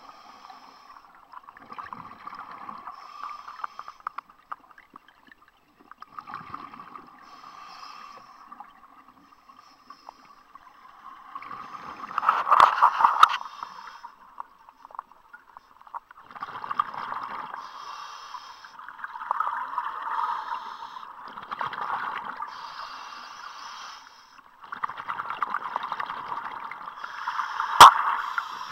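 Scuba diver breathing through a regulator, heard underwater: a rush of exhaled bubbles every few seconds, the loudest about twelve seconds in. A sharp click comes near the end.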